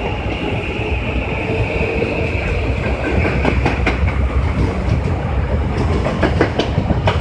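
Kita-Osaka Kyuko 9000 series electric train pulling out and picking up speed, with a low rumble throughout. A steady motor whine fades out after a few seconds, and the wheels clack over rail joints, a couple of times about halfway through and several more near the end.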